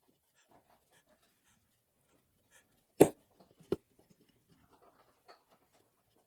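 Two sharp knocks about three seconds in: the first loud, the second lighter and under a second later. Light clicks and taps sound around them.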